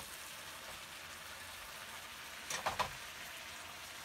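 Steady hiss of stew sizzling in a pan on a portable stove, with a brief louder noise about two and a half seconds in.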